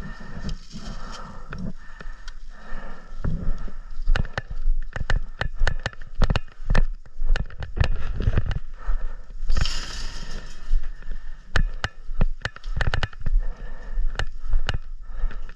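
Airsoft guns firing: many sharp, irregular pops in quick succession from about four seconds in, with a short hiss near the middle.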